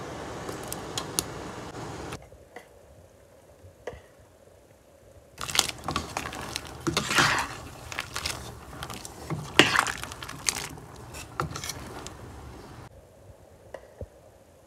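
Clicks, scrapes and crunchy rustling from food and a utensil being handled at a cooking pot, with a steady hiss in the first two seconds that cuts off abruptly.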